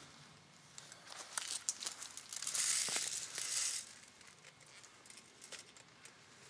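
Close rustling and crunching of dry fallen leaves and gear as a player steps up beside the microphone and crouches, loudest for about a second in the middle, with scattered small clicks.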